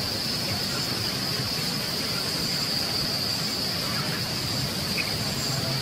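Steady high-pitched insect chorus in grassland, with a low outdoor rumble underneath and a faint short chirp about five seconds in.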